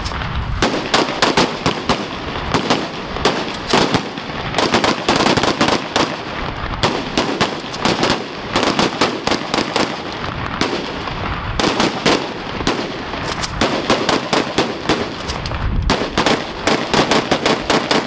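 Rapid rifle gunfire, shot after shot in quick bursts with brief pauses between them.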